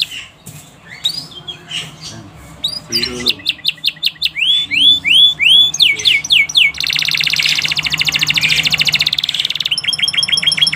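Domestic canary singing a long, varied song: rising chirps, then a series of evenly repeated swooping whistles, then a fast trill lasting about three seconds, ending in a quick repeated two-note phrase.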